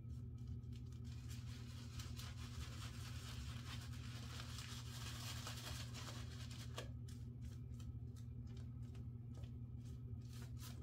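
Shaving brush with a two-band knot being worked through thick lather on a bearded face: a faint, soft rustling and brushing that swells in the middle, over a steady low hum.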